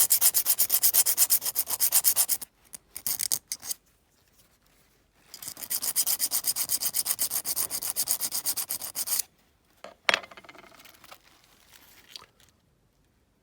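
Quick back-and-forth sanding strokes on a small metal washer, in two long runs with a short burst between them, followed by a single light knock about ten seconds in.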